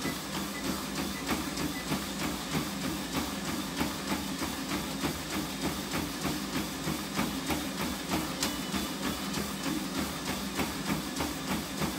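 Running footfalls on a treadmill belt, an even beat of about three strikes a second, over the steady hum of the treadmill running.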